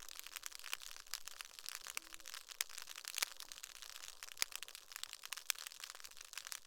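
Dense, irregular crackling of sharp clicks from snapping shrimp, heard underwater through a hydrophone.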